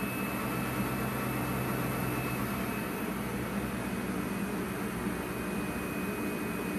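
EF65 electric locomotive with its equipment running: a steady low mechanical hum under an airy rush, with a faint high-pitched whine.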